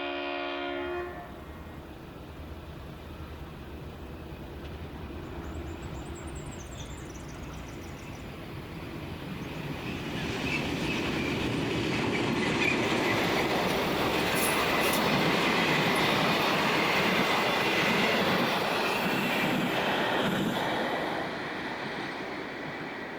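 Diesel locomotive horn sounding one short blast, then a diesel-hauled train passing. The engines and the rumble of wheels on rail swell to their loudest, with wheel clatter, then ease off near the end.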